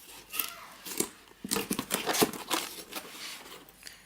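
A cardboard box being opened and its packaging handled: irregular rustling and crinkling with a string of short clicks and scrapes.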